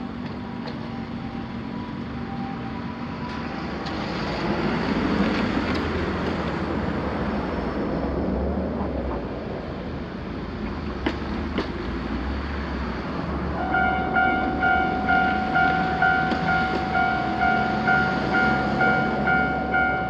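A Shizuoka Railway electric train runs over the level crossing, its rumble swelling about four seconds in and easing off after about ten. About thirteen seconds in, the crossing's electronic warning bell starts ringing, an evenly repeating ding about one and a half times a second that is louder than the train, signalling another train approaching.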